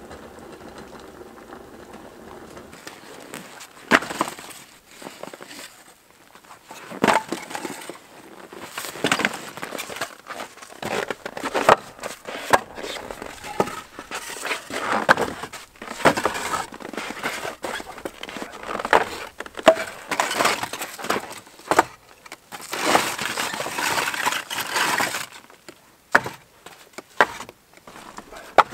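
Scrap lumber and firewood being handled: irregular wooden knocks and clatters mixed with short crunching sounds, after a few seconds of steady low hum.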